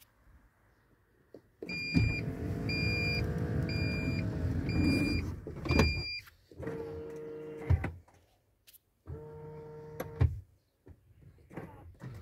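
Power sliding side door of a second-generation VW Sharan running shut, with a high warning beep repeated about every 0.8 s while it moves, ending in a clunk as it latches. Then an electric motor whines twice, each run lasting just over a second.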